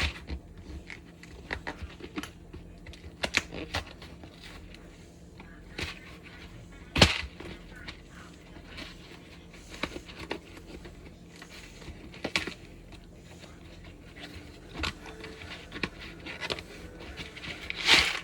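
Irregular clicks and knocks, with a louder knock about seven seconds in and another near the end, over a low steady hum.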